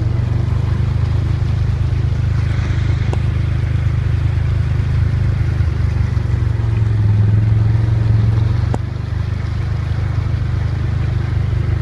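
Vehicle engine running steadily with a low drone while driving through floodwater.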